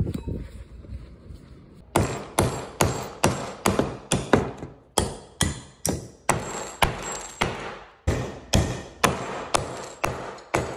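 Heavy glass decanter used as a hammer, striking nails into a wooden block. A fast, even series of sharp knocks starts about two seconds in, roughly two to three a second, each with a short glassy ring.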